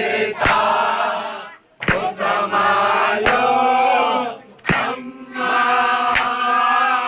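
Men chanting a Muharram mourning lament (noha) in phrases, with loud unison chest-beating (matam) strikes about every one and a half seconds keeping the beat.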